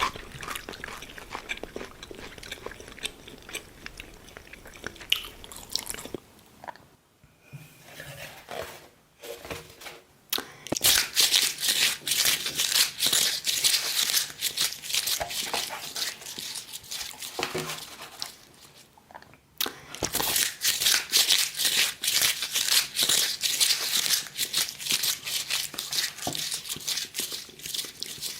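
Close-miked crinkling and crunching, like paper or wrapping being crumpled and torn. It is softer at first, then comes in two long, dense stretches of crackle with a short pause between them.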